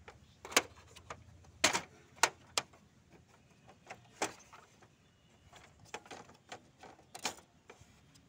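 Irregular sharp plastic clicks and knocks from the HP 5820 printer's carriage as its blue ink-tube cover is pressed down, unlatched and lifted off; the loudest snaps come in the first few seconds, with another cluster of clicks near the end.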